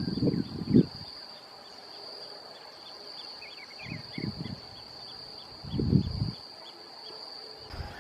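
A steady high-pitched insect drone, with small bird chirps repeating about three times a second and a few short bird calls around the middle. Low muffled thumps come in at the start, about four seconds in and about six seconds in, and are the loudest sounds.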